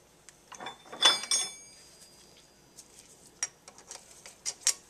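Small metal parts clinking and clicking, with one ringing clink about a second in and a cluster of sharp ticks near the end, as the screws and washers of a Holley carburetor's fuel bowl are handled and fitted.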